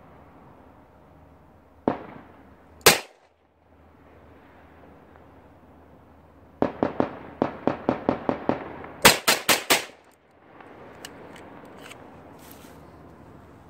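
Gunfire: two single shots about a second apart, then a rapid string of about a dozen shots, about five a second, and a tight burst of four louder shots, followed by scattered fainter shots. The first shots ring on with an echo.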